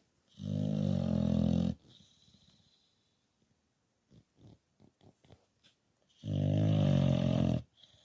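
English bulldog snoring: two long snores about six seconds apart, each lasting about a second and a half, with a few faint clicks in the quiet between them.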